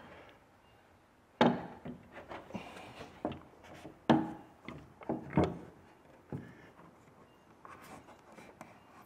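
Wooden cam clamps being set on a wooden boat plank: a series of sharp wooden knocks and clacks, with softer clicks and rubbing in between.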